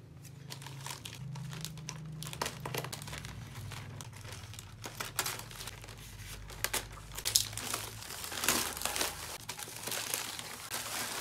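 Bubble-wrap and plastic parcel packaging crumpling and tearing as it is unwrapped, a long run of irregular crinkles and rustles.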